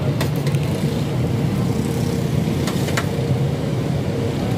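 Steady rumble of street traffic, with a few sharp clicks of a metal spoon against plates and the steel counter.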